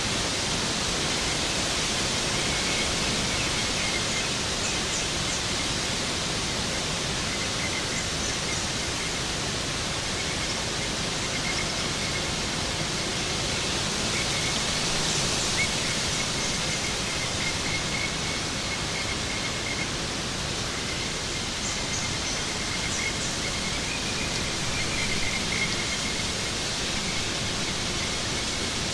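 Waterfall rushing steadily, a dense unchanging wash of falling water, with faint high chirps now and then.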